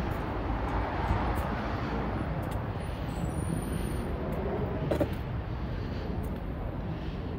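Steady background rumble of city road traffic.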